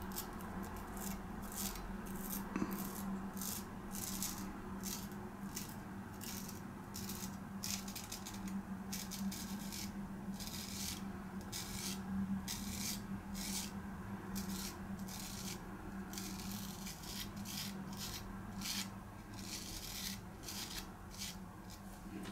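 Straight razor scraping through beard stubble in short, quick strokes, a rasping that comes in irregular runs throughout, over a faint steady hum.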